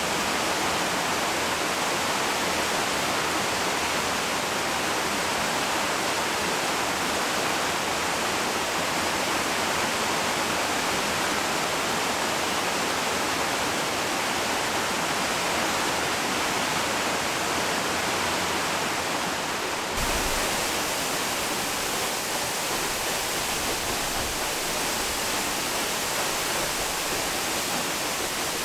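Yoro Falls waterfall: a steady, full rush of falling water. About twenty seconds in, the sound changes abruptly to a brighter hiss with more deep rumble beneath it.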